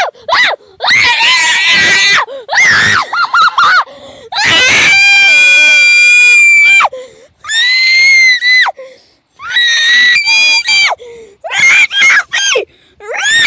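High-pitched human screaming: a run of shrill shrieks with bending pitch and short breaks between them. One scream about four and a half seconds in is held on a steady pitch for about two seconds.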